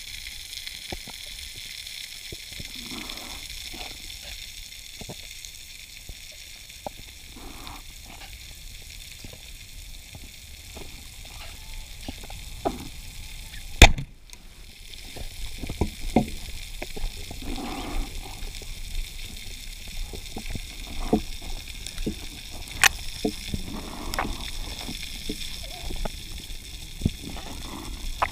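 Underwater sound of steady hiss with scattered faint crackling clicks and low swishes of water movement. About halfway through comes a single sharp, loud crack: a speargun shot into a dogtooth tuna.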